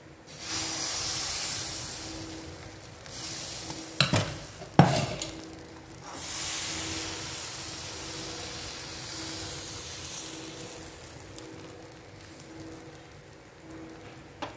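Appam batter sizzling as it hits a hot appam pan. The sizzle is loudest at the start and comes in waves as the pan is tilted and swirled, fading toward the end. Two sharp clinks come a little over four seconds in.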